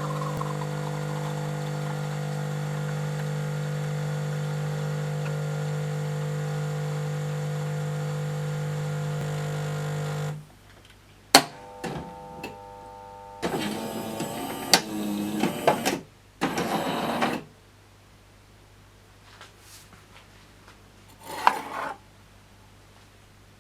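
Jura Z5 automatic espresso machine running with a steady motor hum that cuts off about ten seconds in. It is followed by a few sharp clicks and several short, noisy bursts of working sounds from the machine.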